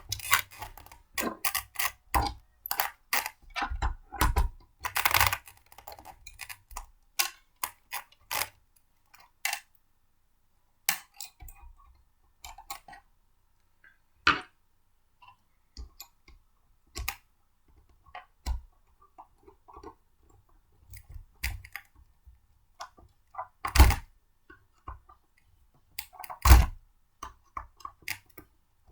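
Irregular clicks, taps and knocks of blender parts being handled and fitted together, with short scraping and rubbing sounds and two louder knocks near the end.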